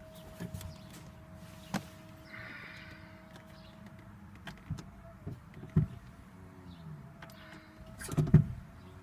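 A steady high electrical tone from the 2010 Toyota Prius that won't start, one of its weird electrical noises, with scattered clicks and a louder knock near the end.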